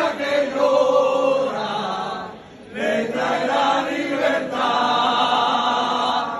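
A crowd of people singing together in unison, in sustained phrases with a short pause about two and a half seconds in.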